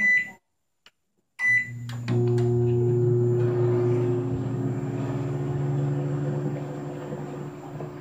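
KitchenAid microwave oven: a keypad beep, another beep about a second and a half later, then the oven starts running with a steady low hum that swells half a second after starting and holds.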